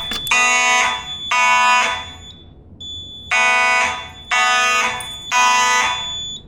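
Fire alarm horns on a Simplex 4004 panel sounding in temporal code: loud buzzy blasts in groups of three, with a longer pause between groups, and a thin steady high-pitched tone under each group.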